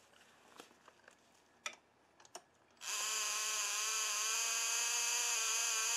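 A cordless power driver whines steadily for about three and a half seconds, starting about three seconds in, spinning a clutch-cover bolt in until it bottoms out. Before it come a few light clicks of the bolts and tool being handled.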